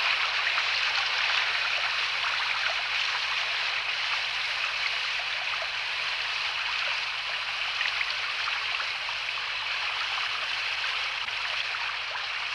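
Small stream running over stones: a steady sound of flowing water.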